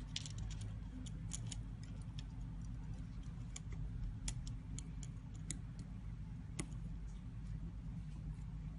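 Small sharp clicks and ticks at irregular intervals from small repair tools working on an iPhone X's parts, over a steady low hum.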